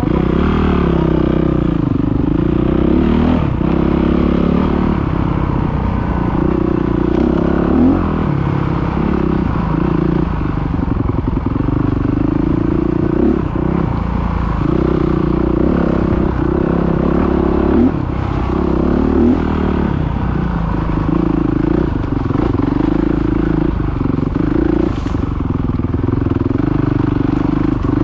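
Enduro dirt bike engine heard from on board while riding a rough trail. It revs up and eases off again and again, its pitch rising and falling every second or two, with a few short knocks over the ground.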